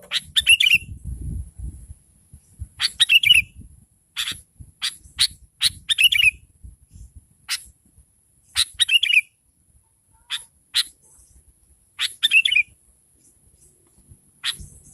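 Sooty-headed bulbul calling again and again: sharp chirps and short warbled phrases, about one a second. Used as a lure call to draw other bulbuls. A faint steady high hiss runs underneath.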